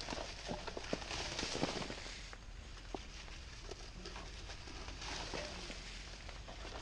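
Faint scraping and scattered sharp clicks as string tangled around a rotary tiller's tines is cut and pulled free with a cutting tool.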